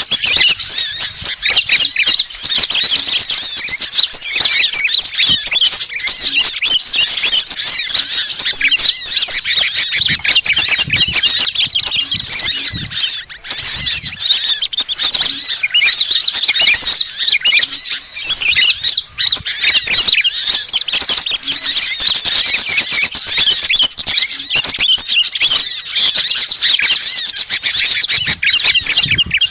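Bird-lure recording of small songbirds, a mix of sunbird and bulbul calls, chirping and twittering rapidly and without pause, loud and high-pitched.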